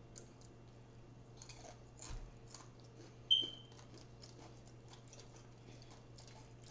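Chewing of people eating at close range, with small scattered clicks throughout. About three seconds in, a short, high ringing clink stands out as the loudest sound.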